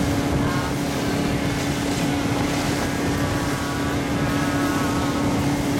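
Outboard motorboats running at planing speed: a steady engine drone over the rush of water along the hull.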